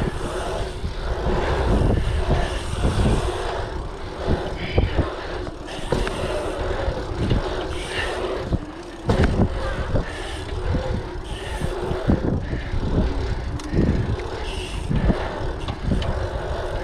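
Mountain bike riding fast over an asphalt pump track: tyres humming on the tarmac, wind buffeting the camera's microphone, and occasional knocks and rattles from the bike over the rollers.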